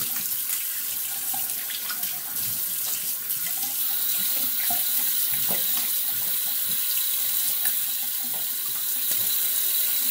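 Bathroom sink tap running steadily, with scattered splashes as a freshly shaved face is rinsed with water.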